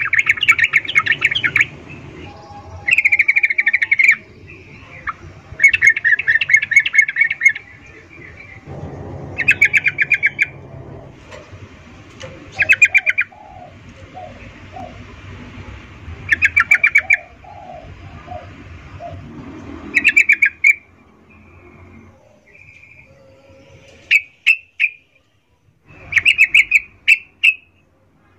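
Yellow-vented bulbul (trucukan) calling in repeated bursts of rapid chattering notes, each about a second long and coming every few seconds, shorter and more clipped near the end. The uploader presents it as a female's breeding call, used to provoke males into singing.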